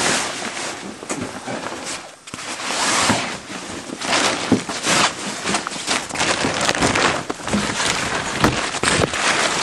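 A plastic tarp and cloth cover rustling and crinkling as they are pulled back by hand, in a run of crackles and scrapes with a short lull about two seconds in.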